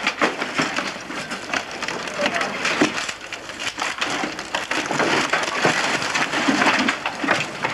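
Old wooden fence panels and slats knocking, scraping and cracking against each other as they are pulled about by hand: a busy, irregular run of wooden knocks.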